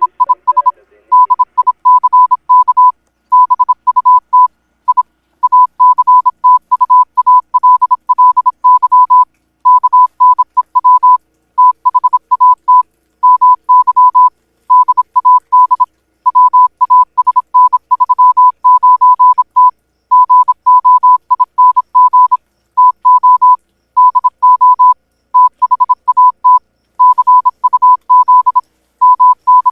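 A single steady electronic beep tone keyed on and off in a rapid run of short and long beeps, with brief silent gaps between groups.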